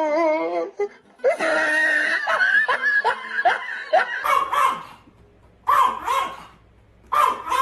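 A person laughing for a few seconds, then a dog barking a few short times.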